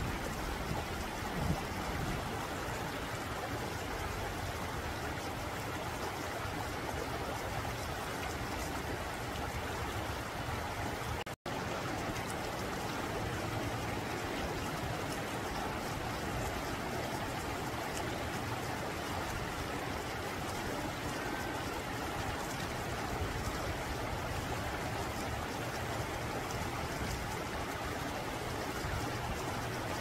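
Shallow rocky mountain stream flowing over and between boulders, a steady rushing and babbling of water. It cuts out for an instant about eleven seconds in.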